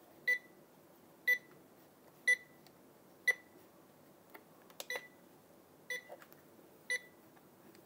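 An Uptimus alarm clock sounding one of its built-in alarm tones: short electronic beeps about once a second, with one longer gap about halfway through.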